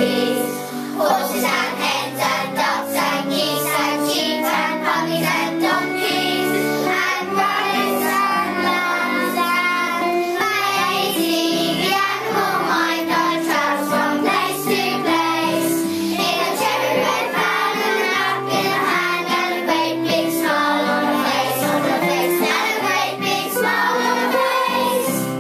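A class of young schoolchildren singing a children's theme song together in unison, over an instrumental accompaniment with a steady beat.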